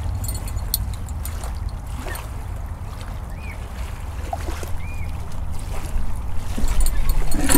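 Wind rumbling on the microphone over the steady wash of sea water, with two short faint chirps about the middle.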